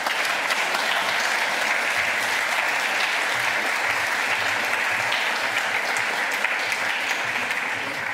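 Audience applauding in a hall, a steady dense clapping that begins to taper off near the end.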